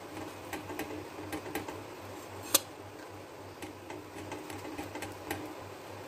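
Metal spoon spreading butter on a sandwich on a tawa griddle: scattered light clicks and scrapes, with one sharper click about halfway through, over a steady low hum.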